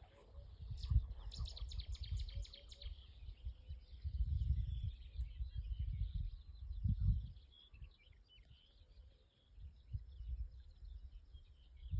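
Small birds chirping: a quick run of about six notes early on, then scattered calls. Gusts of wind buffet the microphone throughout.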